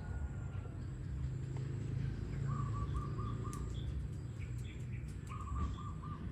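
A bird calling twice, each call a quick run of about four short, even notes, over a steady low background rumble.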